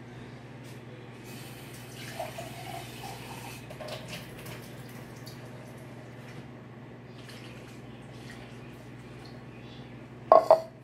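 Stovetop cooking sounds over a steady low hum: a hiss for a couple of seconds starting about a second in, scattered light clicks and clatter, then two loud sharp knocks in quick succession near the end.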